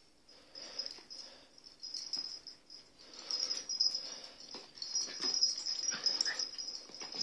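An adult dog playing roughly with 9-week-old puppies: quick, irregular snuffling and wheezy breaths with small high whimpers, louder from about three seconds in.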